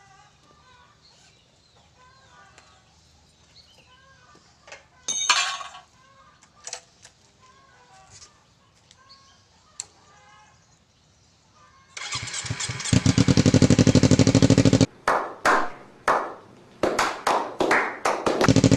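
Kawasaki Ninja sport bike engine starting through a bamboo-tube exhaust about twelve seconds in and running loud, then revved in several short blips near the end. Before that, only faint bird and chicken calls with one short loud burst.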